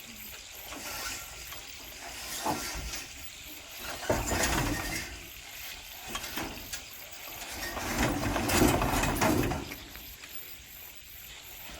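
Remote-control lawn mower's Yamaha 7.5 hp petrol engine running. Its sound swells louder about four seconds in and again around eight seconds in.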